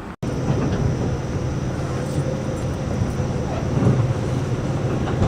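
Steady rumble of a moving train, with a thin steady high whine above it; it starts abruptly after a split-second dropout just after the start.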